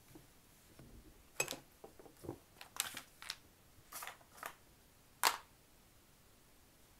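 Light taps and knocks of things being handled and set down on a tabletop while a crocheted blanket is laid out. There are about eight short, sharp taps spread over a few seconds, and the sharpest comes about five seconds in.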